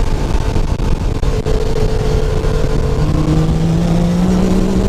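Supercharged Yamaha YXZ1000R side-by-side's three-cylinder engine running hard under load on sand, heard from inside the cab. From about three seconds in its pitch climbs slowly as it accelerates.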